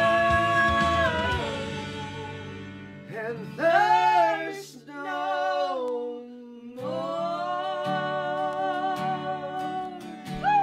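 A woman singing a worship song in long held notes with vibrato, over strummed acoustic guitar and a karaoke backing track.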